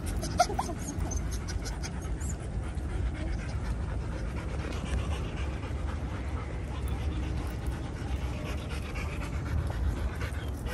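Dogs panting over a steady low rumble, with a few short clicks and brief high whines near the start.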